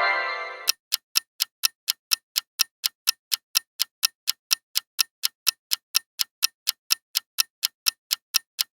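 Clock-like ticking sound effect, even and quick at about four ticks a second, like a quiz countdown timer. A short ringing chime sounds over the ticks at the very start.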